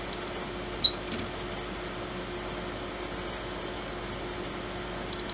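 Rotary encoder on an Agilent E3633A bench power supply's front-panel board clicking through its detents in a quick run at the start and again near the end, with a single click about a second in. Under it, the power supply's cooling fan runs with a steady hum.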